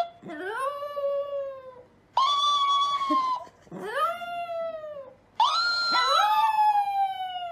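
A Chihuahua howling: four long howls in a row, each rising quickly and then sliding slowly down in pitch. About six seconds in, a second howling voice overlaps the last one.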